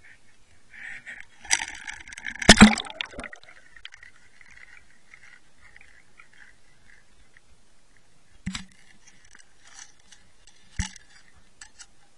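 Camera splashing into lake water about one and a half to three seconds in, with clattering as it goes under, then two short dull knocks later on while it sits underwater.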